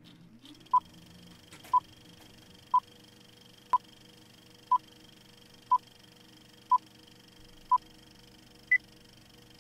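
Film-leader countdown beeps: eight short beeps, one each second at the same pitch, then a final ninth beep at a higher pitch near the end. A faint steady hum runs underneath.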